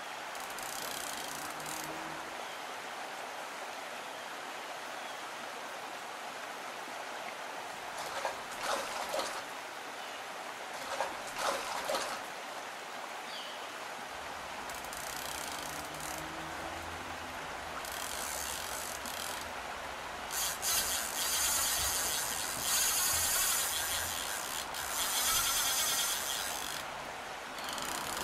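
Steady rushing of a fast glacial river. Over the second half, a fly reel's click-pawl drag ratchets in long spells as a hooked fish pulls line off against the bent rod.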